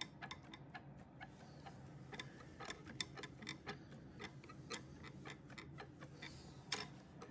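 Faint, irregular wooden clicks and knocks from a dining chair's loose leg joints being worked back and forth, over a steady low hum.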